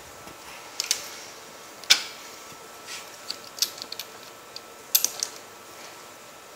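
Irregular sharp metallic clicks and clinks of a hot saw's bar and chain being handled and fitted onto the saw, about a dozen in all, the loudest about two seconds in.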